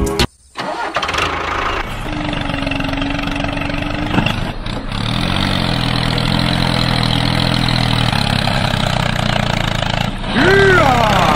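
Tractor engine starting and then running steadily. Just after ten seconds in, a loud tone swoops up and then down.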